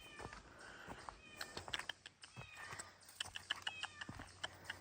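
A small cat meowing over and over in short, high calls, with light clicks and rustling between them.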